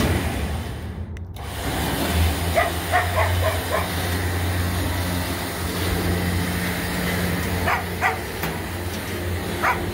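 A dog barking and yipping in short calls: a quick run of them a few seconds in, then two pairs near the end, over a steady low hum.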